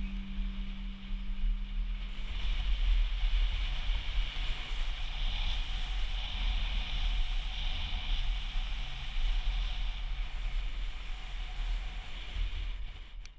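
Wind buffeting a helmet-mounted camera's microphone while riding a mountain bike along a paved road: a steady, uneven low rumble with a hiss of rolling over the asphalt.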